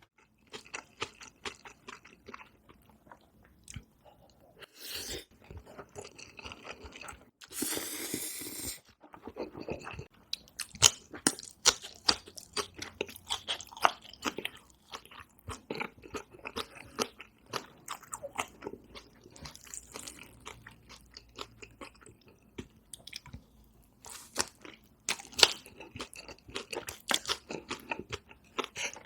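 Close-miked eating sounds, as in a mukbang: chewing and biting with many sharp crunches and wet mouth clicks, and a longer noisy stretch lasting about a second, about eight seconds in.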